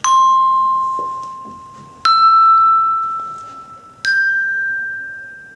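Three tuned bell tones from the Prodigies Bells app, tapped about two seconds apart and rising C, E, G. Each one rings clearly and fades before the next.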